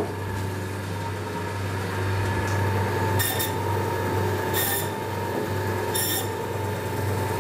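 Butcher's band saw running with a steady hum; three times, about a second and a half apart, the blade gives a brief high screech as it cuts through the lamb shank bone.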